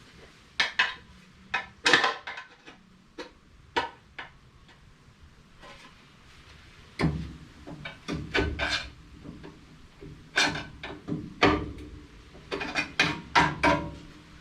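Pry bar scraping old gasket material off a valve cover: irregular metallic scrapes and knocks, with a lull of a few seconds in the middle.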